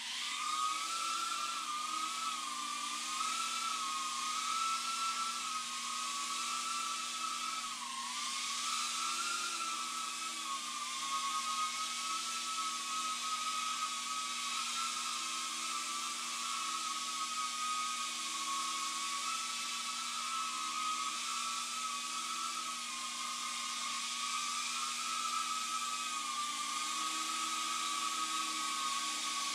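Tiny whoop micro quadcopter's motors and propellers buzzing with a high whine in flight, the pitch wavering up and down as it manoeuvres, with a brief drop about eight seconds in.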